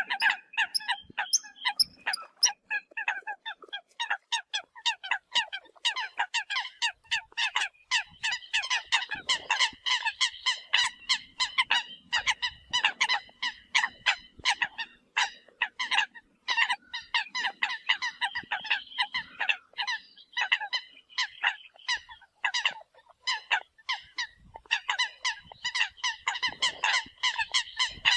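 Eurasian coots calling: a dense, unbroken run of short, sharp honking calls, several a second.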